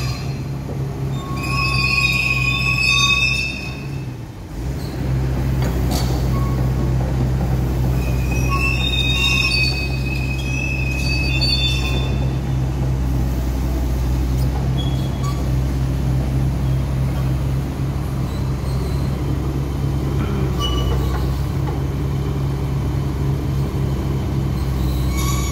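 XCMG XE215C crawler excavator's diesel engine running steadily, with high squeals from its steel tracks twice, at about two seconds in and again around ten seconds in.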